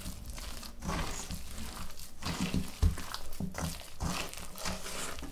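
Hands kneading a soft shortcrust dough in a bowl: irregular squishing and pressing sounds with low thumps, and one sharper knock a little under three seconds in.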